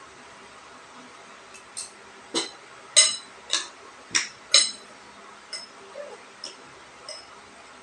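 Cutlery clinking against dishes during a meal: about ten sharp, ringing clinks, the loudest coming close together about two to five seconds in, then lighter ones.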